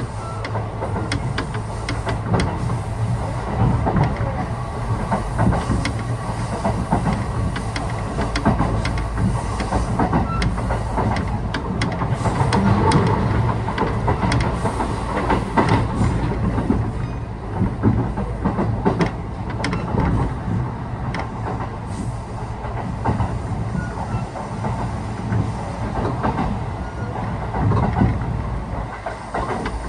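Running sound of a Kintetsu 1620-series electric train at speed, heard from inside the passenger car: a steady rumble with the wheels clicking irregularly over rail joints.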